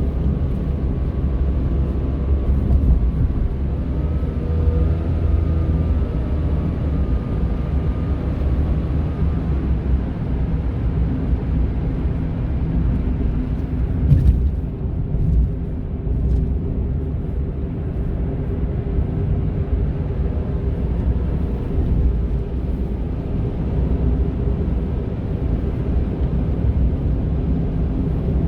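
Honda N-ONE kei car under way: steady engine and road rumble with a faint whine that wavers in pitch through the first third or so and returns faintly later. The owner hears this as a strange motor noise and fears it is a fault in the high-mileage car. A single short click sounds about halfway through.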